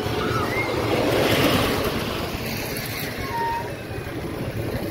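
Wind rushing over the microphone as a flying-scooter ride car swings round, swelling about a second and a half in.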